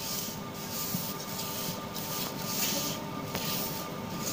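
A hand rubbing and scraping a crumbly mixture of wheat flour, gram flour, ghee and powdered sugar around a stainless steel bowl: a gritty rustle that swells and fades with each stroke, about six strokes in all.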